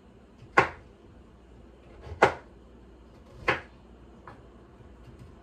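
Kitchen knife chopping root vegetables on a wooden cutting board: three sharp knocks roughly a second and a half apart, then a faint fourth.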